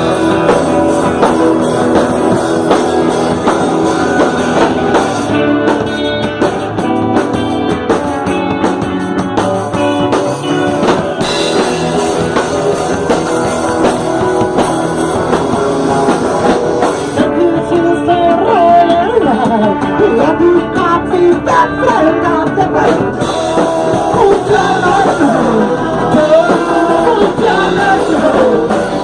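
A band rehearsing a rock song: singing over guitar and drums.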